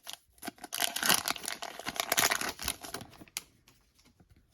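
Plastic wrapper of a trading-card bonus pack crinkling as it is torn open and handled, stopping a little past three seconds in, followed by a few faint ticks.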